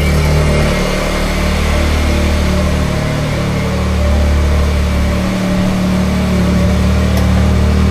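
Can-Am Maverick R's turbocharged three-cylinder engine idling smoothly on its new E85 tune, the leftover 100-octane fuel burned off so it no longer coughs or runs rich.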